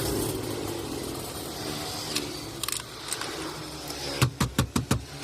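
A quick run of five sharp clicks about four seconds in, with a few fainter clicks earlier, over a low steady hum.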